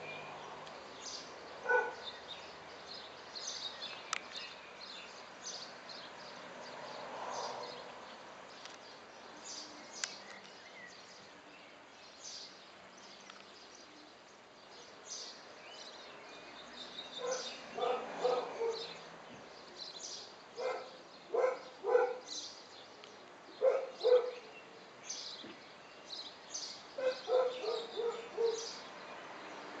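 Short pitched animal calls in quick runs of four or five, mostly in the second half, over a scatter of faint high-pitched ticks.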